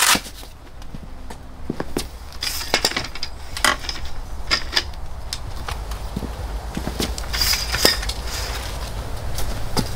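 Awning support leg being set up: its telescoping metal pole extended and set in place, giving scattered metal clicks, clinks and knocks.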